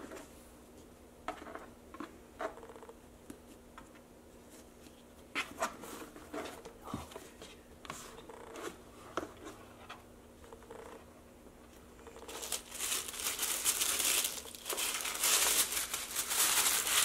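Scattered light taps and rustles of a satin ribbon being untied and a cardboard gift box being handled, then, about twelve seconds in, loud crinkling of tissue paper being folded back, the loudest part.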